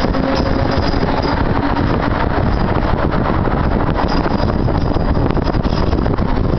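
Interior noise of a moving trolleybus: a steady low rumble of tyres and road, with a faint hum for the first couple of seconds.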